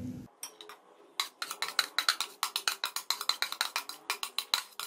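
Metal spoon scraping and tapping against a ceramic plate as curry is pushed off it into a pot: a rapid, irregular run of sharp clicks, several a second, starting about a second in.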